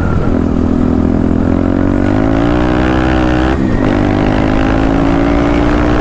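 KTM Duke 390's single-cylinder engine accelerating hard, its exhaust note rising in pitch. There is a brief dip at an upshift about three and a half seconds in, then it climbs again.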